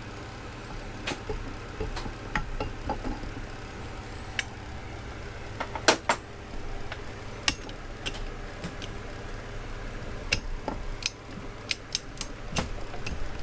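Irregular sharp metal clicks, knocks and clinks of hand tools being worked and handled, over a steady low hum.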